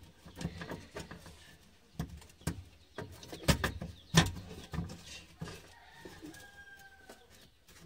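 Car scissor jack being handled and wound open by hand: a handful of sharp metal clicks and knocks, spread over the first half. Later a faint drawn-out bird call.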